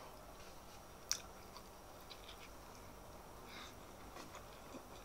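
Close-miked chewing with the mouth closed: soft, faint wet mouth sounds and small clicks while a mouthful of food is eaten. One sharp click about a second in is the loudest sound.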